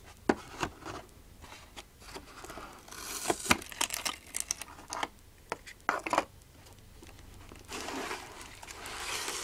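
Plastic packaging of a boxed action figure being handled and pulled apart: crinkling and rustling with irregular sharp clicks and snaps through the first two-thirds, then a longer stretch of rustling near the end.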